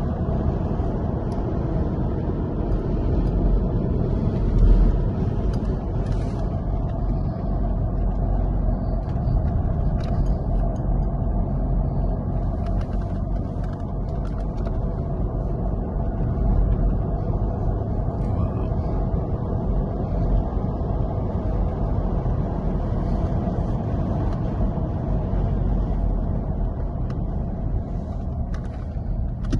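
Car driving on a race track, a steady low rumble of engine and road noise with a brief swell in level about four and a half seconds in.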